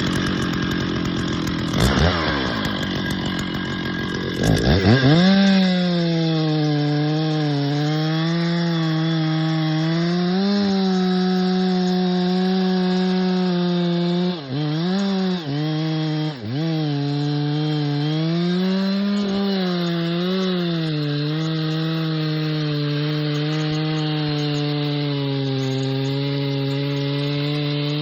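Stihl 066 two-stroke chainsaw revving a couple of times, then cutting steadily into a chestnut oak from about five seconds in. Its pitch sags and recovers under the load of the cut, with two short dips near the middle.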